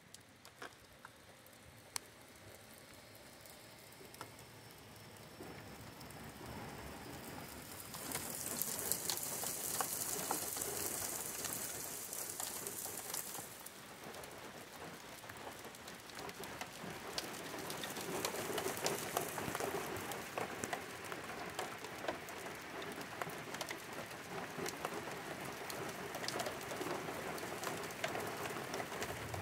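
Rain falling on asphalt pavement, with many separate drop ticks in a steady hiss; it grows heavier over the first several seconds. A high hiss joins in for about five seconds about a third of the way in.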